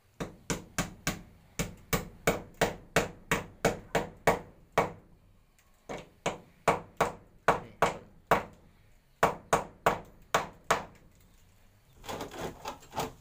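Hammer blows driving an expansion bolt into a concrete wall: sharp metal-on-metal strikes, about three a second, in runs with two short pauses. The strikes stop near the end and a brief burst of mixed noise follows.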